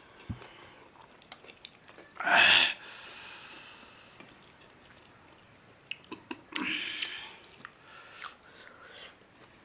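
A person eating: soft chewing and small mouth clicks, broken by two short, louder vocal sounds about two and a half seconds in and again about seven seconds in. The first is the loudest sound.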